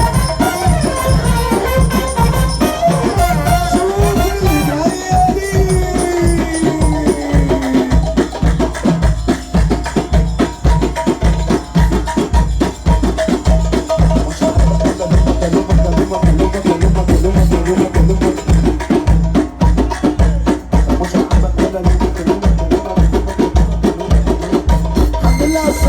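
Loud Egyptian mahraganat music playing without vocals, driven by a fast, steady electronic drum beat. A melody line slides downward in the first several seconds, then the beat carries on evenly.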